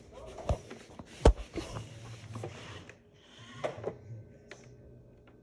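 Handling noise: rustling and a series of knocks close to the microphone, the loudest a sharp thump about a second in, with a few light clicks near the end, as a hand reaches onto a robot vacuum's plastic top to press its buttons.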